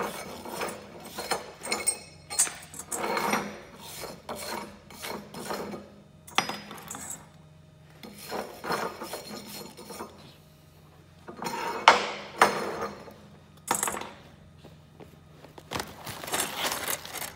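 Steel hand tools scraping, knocking and clinking against steel weld test plates, cleaning slag and spatter off stick-weld beads, in irregular bursts with one sharp clink partway through.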